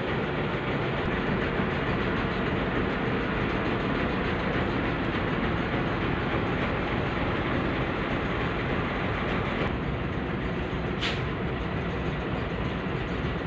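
Heavy road traffic with trucks passing close by: a loud, steady mix of engine and tyre noise, with a brief hiss about eleven seconds in.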